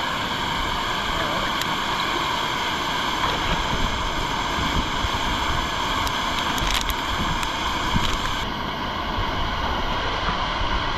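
River water rushing steadily around the rock, with wind rumbling on the microphone and a few faint clicks.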